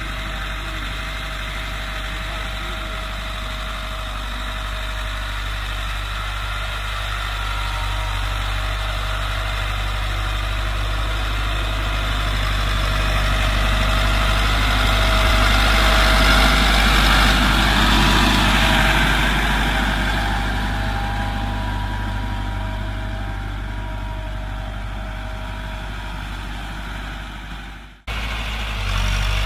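Massey Ferguson 385 tractor's diesel engine running steadily under load while pulling a tine cultivator through the soil. It grows louder as the tractor comes close, loudest a little past halfway, then fades; the sound briefly cuts out near the end.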